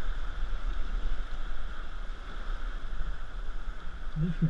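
River rapid whitewater rushing steadily past a raft, a continuous hiss of moving water. A short low voice sound near the end.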